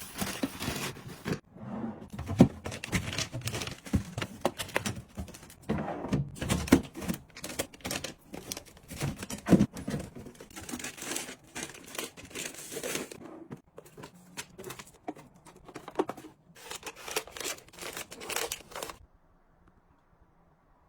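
Packaging and small items being handled up close: crinkling and tearing of wrappers mixed with quick clicks and taps, in an irregular stream that stops abruptly about 19 seconds in.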